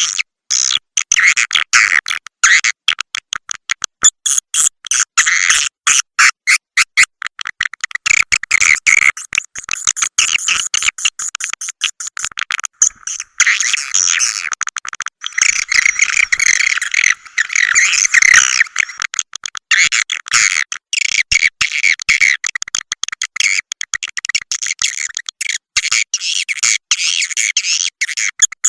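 Swiftlet call lure recording: a dense, fast stream of high-pitched swiftlet chirps and twitters, many short calls a second, played to draw swiftlets into a nesting house.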